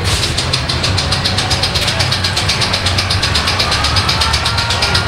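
Fairground ride machinery running: a steady low engine hum with a fast, even clattering tick, several a second, and a faint whine that rises from about halfway.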